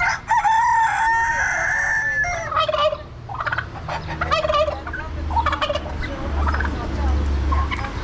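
A rooster crowing: one long call of about two seconds at the start, followed by shorter poultry calls and clucks.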